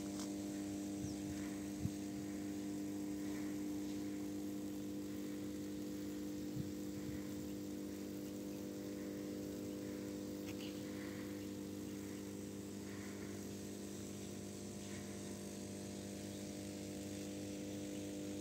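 Steady electrical hum of an energised high-voltage substation's power transformers: a low drone in even steps of twice the 50 Hz mains frequency, the sign of live, loaded equipment.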